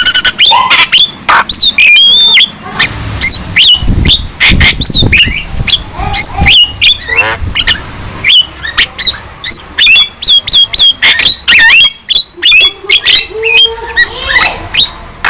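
Young Javan myna singing vigorously: a rapid, varied stream of whistles that slide up and down, harsh squawks and click-like notes, with no long pauses.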